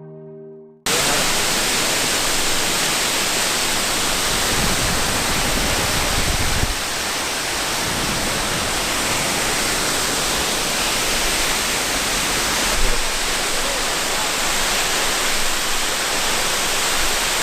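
Waterfall, Powerscourt Waterfall: water falling with a loud, steady rushing noise that cuts in suddenly about a second in.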